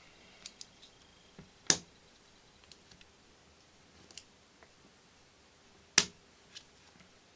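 Light clicks and taps of small metal and plastic parts being handled while a tight pin is worked out of an air pistol's frame. Two sharp, louder clicks stand out, one a little under 2 s in and one about 6 s in.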